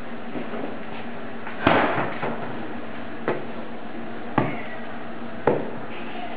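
Pizza dough being kneaded by hand on a floured countertop, with dull knocks about once a second as the dough is pushed and pressed down. A sharper, louder knock comes about two seconds in.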